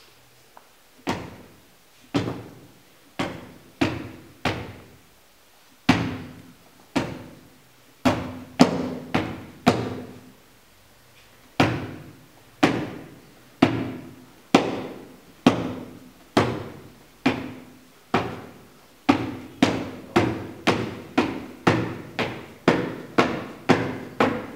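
A ball bouncing over and over at an uneven pace, about thirty bounces, each a sharp hit with a short ringing tone. The bounces pause twice and come faster near the end.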